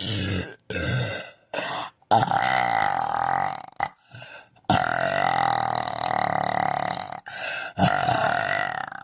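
A woman belching over and over. It opens with three short burps in quick succession, then three long, drawn-out belches, each lasting one to two and a half seconds, with a short burp between each.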